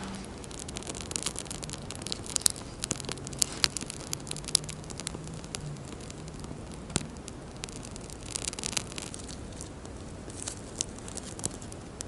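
Small kindling fire of twigs and pine needles crackling, with sharp irregular pops and snaps coming in clusters.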